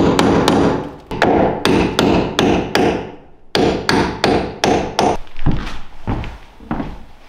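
Claw hammer striking wood framing in quick, even blows about three a second, with a short break about three seconds in. A few dull thuds follow near the end.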